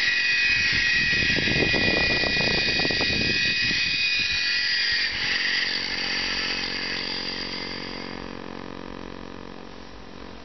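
High-pitched whine of a Blade mCX2 micro coaxial electric RC helicopter's motors and rotors as it hovers low and sets down, then fading steadily as the motors spool down and the blades slow.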